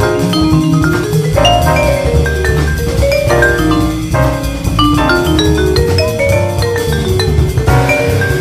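Musser vibraphone played with mallets in a live jazz piece: quick runs of struck, ringing notes, with drums underneath.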